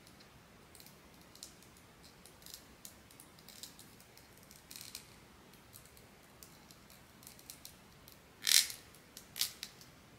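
Handling of blind-box packaging and small PVC figure parts: scattered light clicks and rustles, with a louder crinkle about eight and a half seconds in and another a second later.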